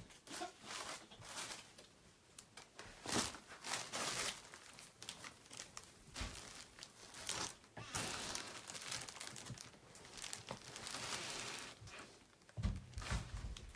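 Rustling and crinkling of embroidered net and silk fabric being lifted and moved about, in irregular bursts, with a few dull bumps near the end.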